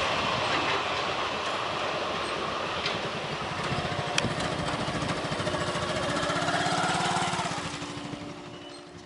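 Passenger express train rolling past and away, its coaches' wheels rumbling on the rails. A steady hum with a fast, even pulse comes in about four seconds in, then the whole sound fades into the distance near the end.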